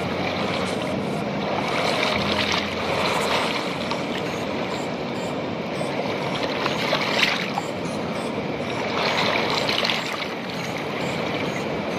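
Fast, silty river water rushing and splashing over rounded stones at the water's edge, swelling and easing every few seconds as surges wash over the stones.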